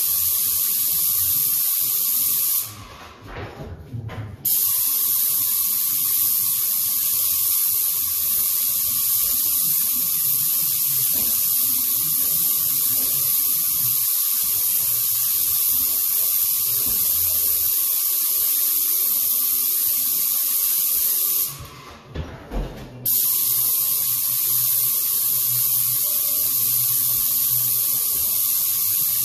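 Airless paint spray gun hissing steadily as it lays a mist coat of paint. The spray cuts off briefly twice, about three seconds in and again about twenty-two seconds in, when the trigger is let go.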